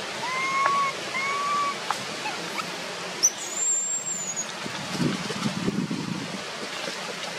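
Infant macaque giving two short, clear whimpering coo calls about a second apart, the cry of a baby whose mother will no longer nurse it. About three seconds in, a single high, thin whistle rises, holds and falls away.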